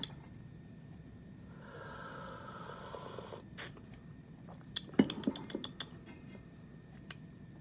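A person sipping coffee from a mug: a breathy slurp lasting about two seconds, then a quick run of lip smacks and mouth clicks as he tastes it.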